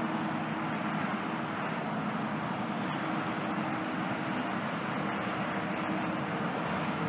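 A transit bus drives slowly toward the listener, its engine a steady low hum over a constant rush of outdoor traffic noise.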